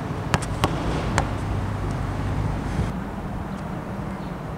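A basketball bouncing a few times on an asphalt court in the first second or so, sharp slaps, over a steady low outdoor rumble that carries on after the bouncing stops.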